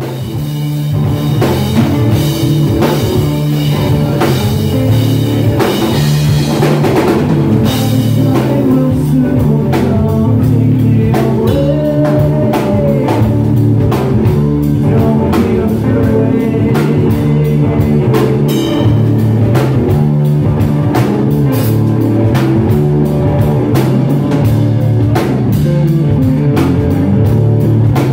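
Live rock band playing an instrumental jam on electric guitar, electric bass and drum kit, with steady drumming and the bass line holding low underneath.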